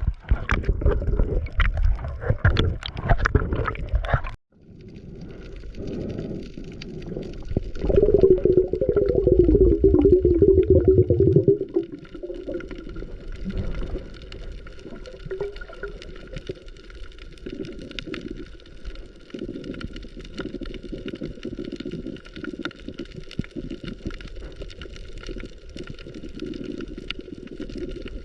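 Sea water splashing and gurgling around a camera that is going in and out of the water. About four seconds in it cuts off abruptly. There is a loud gurgle of bubbles a few seconds later, then quieter bubbling with a faint steady hum.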